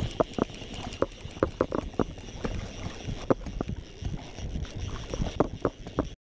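Footsteps wading quickly through shallow water, heard as irregular knocks and splashes over a steady wash of water and wind, with some handling bumps on the rod. The sound cuts off abruptly just before the end.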